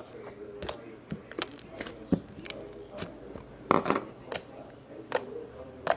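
Hands squeezing and stretching slime, making irregular sharp sticky pops and clicks.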